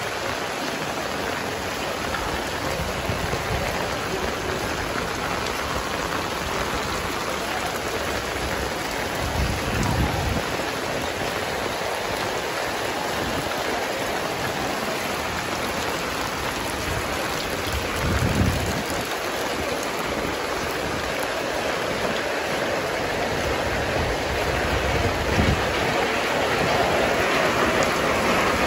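Steady heavy rain falling on a paved street and roofs, an even hiss throughout. Near the end the rain gets louder as water pours off the edge of a tarp shop awning close by, and a few brief low bumps come three times along the way.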